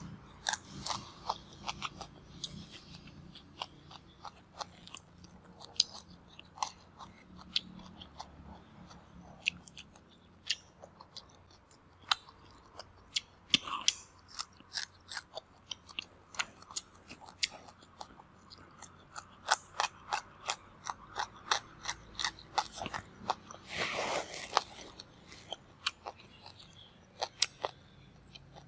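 Close-miked chewing of rice, curry and crunchy raw vegetables eaten by hand: irregular wet crunches and mouth clicks, with one louder, longer crunch about three-quarters of the way through.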